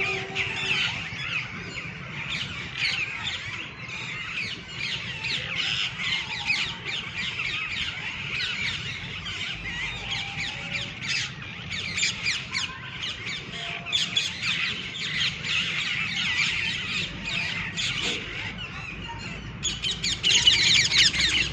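A flock of green, red-beaked parrots in a tree squawking and chirping without pause, many short calls overlapping, with a louder, denser burst near the end.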